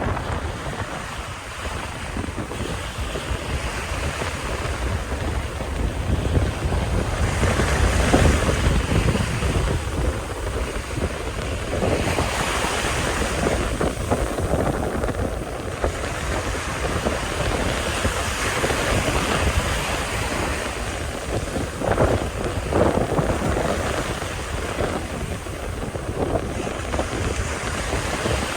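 Strong wind buffeting the microphone over sea waves washing ashore, rising and falling in gusts, with the biggest surge about eight seconds in.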